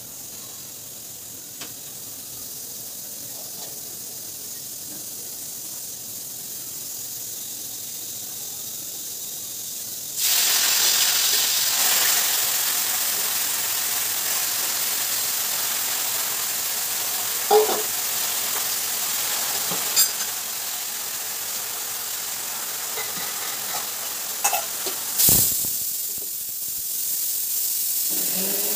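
Freshly washed gongura (sorrel) leaves going into hot oil in an aluminium kadai. A faint hiss of the hot oil turns suddenly into a loud, steady sizzle about ten seconds in, with a few clicks of handling. The sizzle eases shortly before the end and then picks up again.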